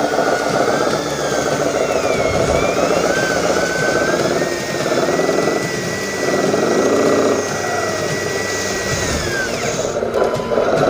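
Remote-control model truck running. Its motor whines, rising and falling in pitch with the throttle, over a steady engine-like rumble. A reversing beeper starts near the end.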